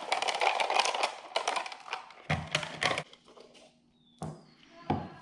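Dense, rapid clattering and clicking of small hard objects for about three seconds, then a few separate sharp knocks.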